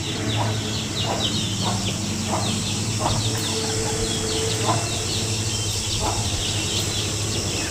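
Birds calling: many short falling chirps repeating several times a second, with lower short calls in between, over a steady low hum.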